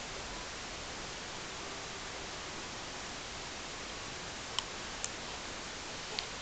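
Quiet room tone, a steady hiss, with three small clicks in the second half: two about half a second apart, then one more near the end.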